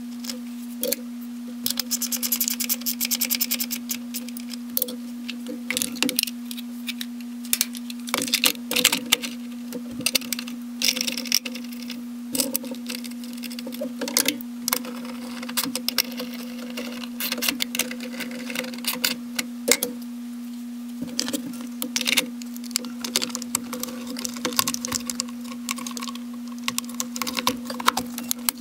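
Clicks, knocks and rattles of plastic and metal parts being handled as a car's plastic air filter box and its connectors are refitted by hand, with a quick run of clicks about two seconds in, over a steady low hum.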